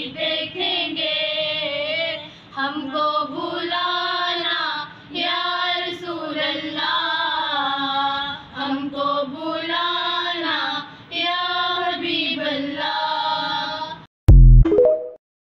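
Female students singing an Urdu naat together, unaccompanied, in long held phrases that rise and fall. The singing stops about 14 seconds in, followed by a brief loud burst of sound.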